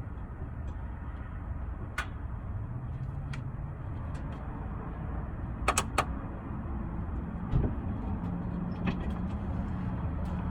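Sharp clicks from the rear of a car at irregular spacing, with a quick run of three near the middle, over the steady low hum of the running car; the cause of the clicking is unknown.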